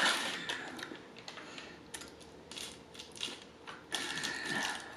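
Close-miked chewing of a soft pretzel: a run of small wet clicks and smacks from the mouth, loudest right at the start.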